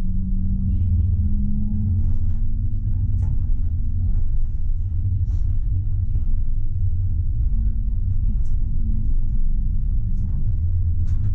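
Tram running along the track, heard from the driver's cab: a steady low rumble with a low hum that comes and goes and a few short clicks.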